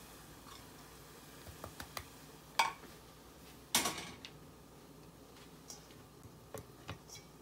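Scattered light clicks and knocks, the loudest two about two and a half and four seconds in, the second with a short ring after it.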